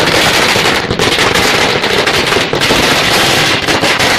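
A string of firecrackers bursting on the road: loud, rapid, unbroken bangs in a fast crackling run.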